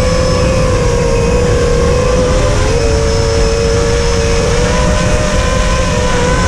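Arris 250 FPV quadcopter's brushless motors and propellers in flight: a whine made of a few close pitches that drift and step slightly as the throttle changes, over a steady rushing noise of wind and prop wash.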